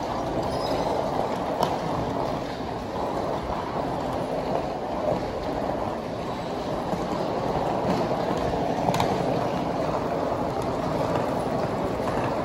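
Suitcase wheels rolling over a hard terminal floor: a steady rumble with a few light clicks.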